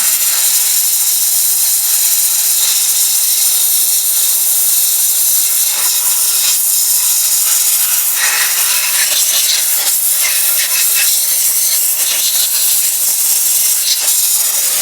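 Media blaster in a blasting booth firing crushed walnut shells at an aluminium cylinder head to strip the carbon: a loud, steady hiss of compressed air and grit that stops at the end.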